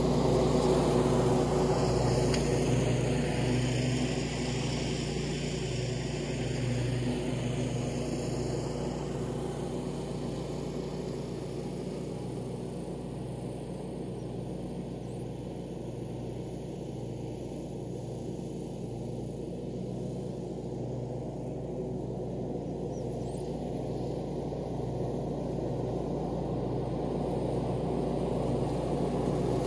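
Scag zero-turn riding mower running steadily with its blades engaged while cutting grass. It fades as the mower moves away over the first half and grows louder again near the end as it comes back.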